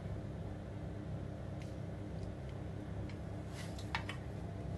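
Steady low hum, with a few faint clicks of chicken pieces being pushed onto a wooden skewer about a second and a half in and again near the end.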